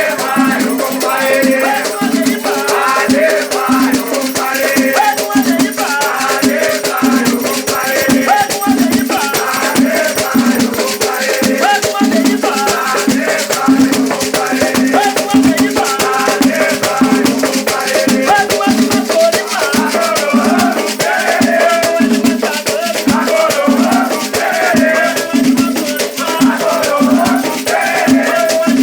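Batuque ritual music: rattles shaken steadily and fast while voices sing, the whole thing continuous and loud.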